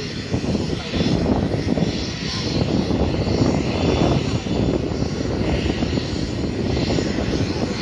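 Aircraft engines running off-camera: a steady, loud rumble whose level rises and falls a little.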